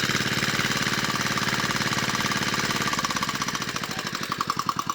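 Small engine running with a rapid, even firing beat that slows near the end as it winds down.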